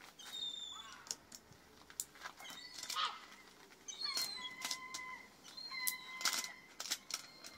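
Transfer tape being peeled back off a vinyl decal on a car's paintwork, giving a string of sharp crackles and clicks. High whistled bird calls sound several times over it.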